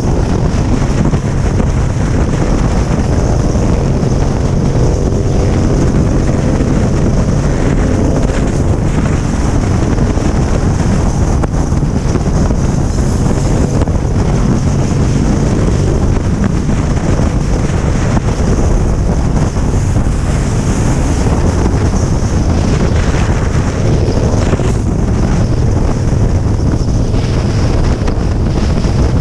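Cruiser motorcycle engine running steadily at road speed, buried under heavy wind noise on the microphone.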